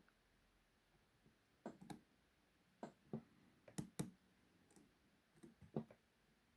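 Faint, irregular clicks and taps of lock picking tools working the pins inside a Burg 40 mm padlock, about ten in all.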